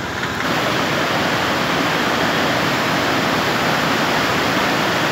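A river in flood, rushing and churning over rocks as whitewater, a steady noise of fast-moving water that grows a little louder about half a second in.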